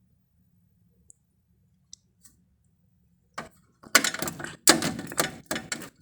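Crisp clicking and crackling, a few faint ticks at first, then loud, dense runs from about three and a half seconds in, as of a grey parrot biting and tearing at something it is wrecking.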